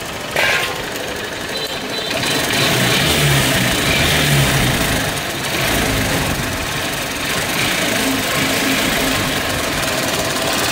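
Hero Honda CBZ Xtreme's single-cylinder four-stroke engine running with an abnormal engine noise before repair, getting louder about two seconds in.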